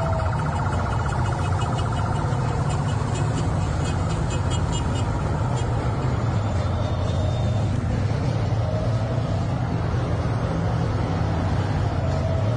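Steady low rumble of vehicle engines and road noise, with a siren wailing faintly on and off.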